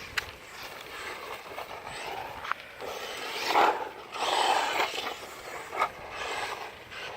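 Traxxas Mini E-Revo radio-controlled truck driving, its electric motor and tyres giving a rushing noise that swells and fades several times as it speeds up and slows. Three sharp clicks come through, about two and a half seconds apart.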